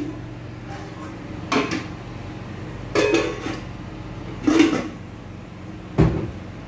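Metal lids of large cooking pots clanking as they are lifted and set back down: four clanks about a second and a half apart, the last one with a heavier thump.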